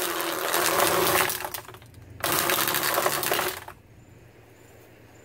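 Ryobi 18-volt cordless string trimmer run in two short bursts of about a second and a half each, the spinning line cutting grass at the lawn edge and winding down between the bursts.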